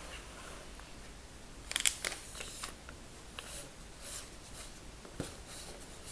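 Close-miked ASMR trigger sounds: soft, scattered crackles and clicks, loudest in a quick cluster of sharp clicks about two seconds in.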